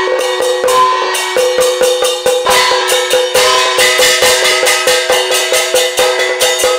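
Traditional Hakka gong-and-drum percussion played by several people together: sticks beating a wooden block and a small gong while small hand cymbals clash, in a quick even beat. Two ringing metal tones carry on under the strikes.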